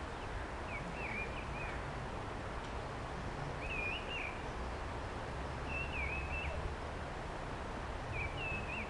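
A small bird singing short warbling phrases, four of them about two seconds apart, over a steady low rumble of outdoor background noise.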